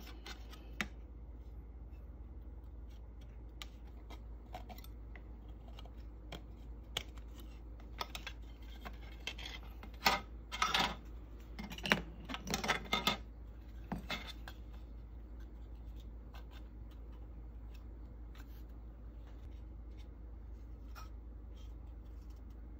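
Plastic scale-model car parts being handled: scattered light clicks and taps, with a short run of louder plastic clacks and rattles about halfway through as the separate hood piece is held up against the body shell. A low steady hum underneath.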